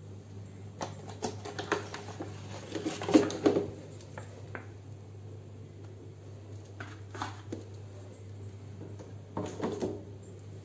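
Plastic bottles and a plastic hand-wash refill pouch being handled and set down, giving scattered light clicks and knocks, busiest about three seconds in and again near the end, over a steady low hum.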